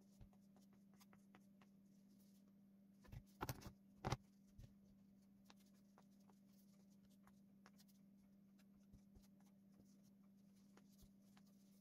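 Near silence: quiet handling of a model-aircraft covering iron and a balsa rudder, with faint scattered clicks and a few soft knocks about three to four seconds in, over a faint steady hum.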